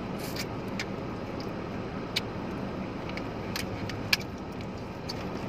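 Steady hum inside a car's cabin, with a few sharp clicks and crunches as crispy fried chicken is bitten and chewed.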